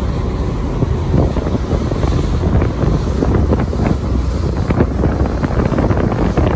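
Wind buffeting the microphone on the open deck of a fishing boat under way, in irregular gusts over the low, steady rumble of the boat's engine.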